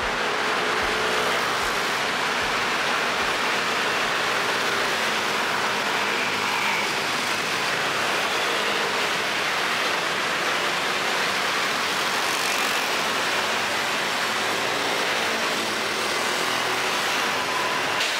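Steady street ambience: a continuous even rush of traffic noise at one level throughout.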